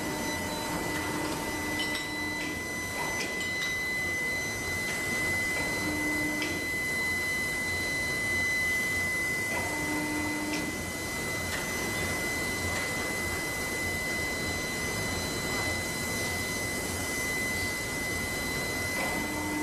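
Steady foundry machinery noise with a constant high whine. A lower hum sets in briefly about four times, and faint ticks are scattered through it.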